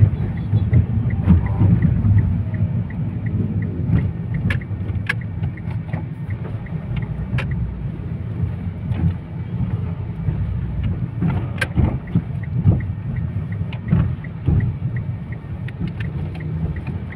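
Car driving at low speed, heard from inside the cabin: a steady low engine and road rumble. Scattered sharp clicks and knocks and a faint regular ticking run through it.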